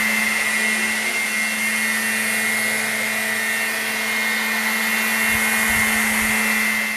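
Walkera HM 5G6-1 electric micro RC helicopter flying: its motors and rotor blades whir steadily with a high whine.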